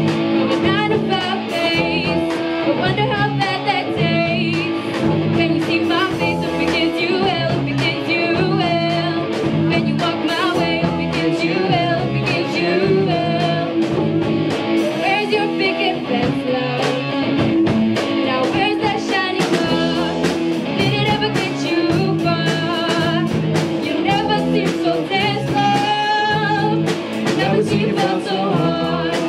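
A live rock band playing: a woman sings into a microphone over electric guitars and a drum kit, with cymbal hits throughout.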